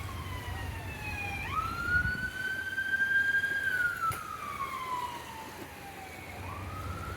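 Emergency vehicle siren in a slow wail: its pitch falls, sweeps back up about a second and a half in, slowly falls again over the next few seconds, and rises once more near the end. A faint low traffic rumble runs underneath.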